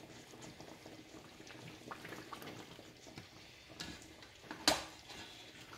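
Quiet kitchen sounds of cookware being handled: a few soft knocks, and about three-quarters of the way through one sharp clink.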